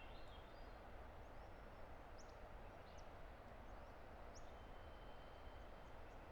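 Faint, steady rush of a distant river, with a few faint, high, short bird chirps scattered through it and a thin, high whistle held for about a second past the middle.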